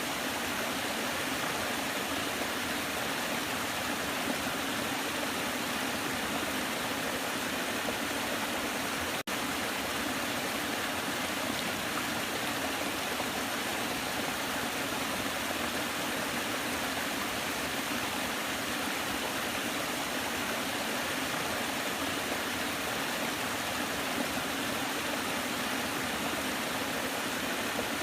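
Waterfall: a steady, even rush of falling water, with a momentary break in the sound about nine seconds in.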